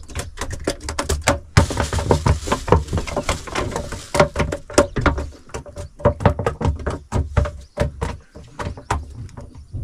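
Freshly caught red piranha flopping and slapping on the floor of the boat: a rapid, irregular run of knocks and taps.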